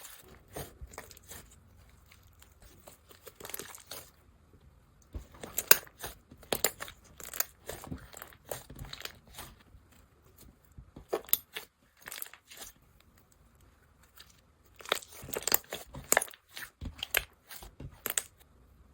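Hands squishing and stretching a fluffy cotton candy slime, giving bursts of crunchy crackling and popping with short pauses between handfuls.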